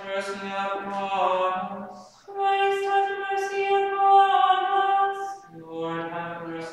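Two unaccompanied voices chanting Evensong prayers in alternation, each mostly on one held reciting note: a lower voice, then a higher voice from a little after two seconds in, then the lower voice again near the end.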